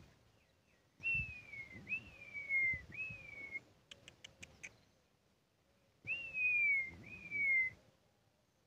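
A person whistling to call the dogs: three slurred, downward-sliding whistles, then two more a few seconds later. Between them comes a short run of tongue clicks.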